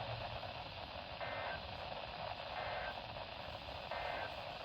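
Radio receiver static: a steady hiss that drops away briefly three times, about every second and a half, letting faint tones show through.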